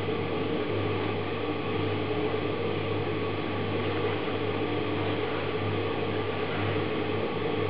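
Steady hum with an even hiss, like a small appliance or fan motor running, unchanging throughout.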